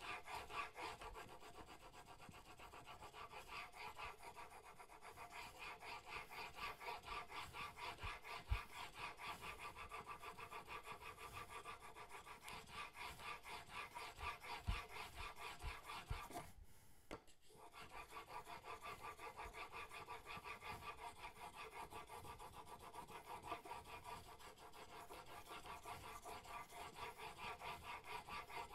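Steel chisel in a Sharp Skate honing jig being stroked back and forth on a flat sharpening stone: a steady, rhythmic scraping rub at about four strokes a second, with a brief stop a little past halfway.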